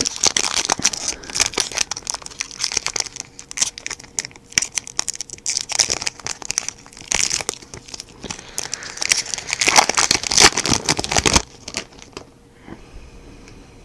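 Foil trading-card booster-pack wrapper crinkling as it is torn open and the cards are slid out, stopping about two seconds before the end.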